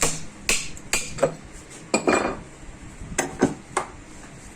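Metal parts and tools being handled, clinking and clacking: about eight sharp knocks with a longer clattering rattle about two seconds in.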